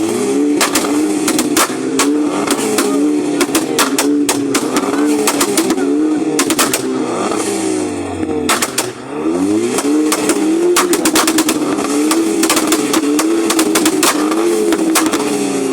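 A car engine revved again and again, its note rising and falling, with many sharp exhaust bangs and pops crackling between and after the revs.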